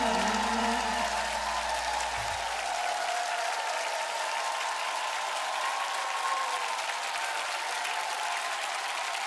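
Studio audience applauding, a dense steady patter of many hands. The music's final held chord fades out under it about three seconds in.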